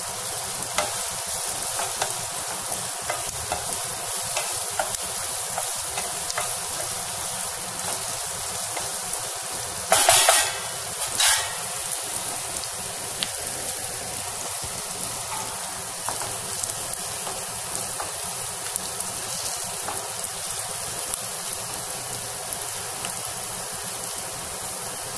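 Chopped onions and green chillies sizzling in hot oil in a nonstick pan while they fry toward golden, stirred with a wooden spatula, over the steady noise of a kitchen chimney (range hood) fan. Two brief louder bursts come about ten and eleven seconds in.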